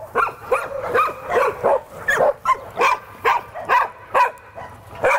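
Dogs barking and yipping repeatedly: short barks, about two or three a second, some overlapping.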